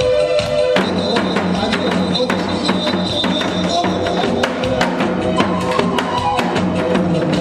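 Instrumental music with a steady percussive beat and held melody tones, an instrumental passage between sung lines.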